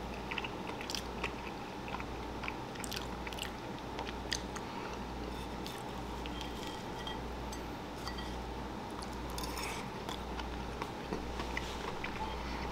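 Faint chewing of a mouthful of baked salmon with a crispy crushed-potato-chip crust: scattered small crunches and mouth clicks over a low steady hum.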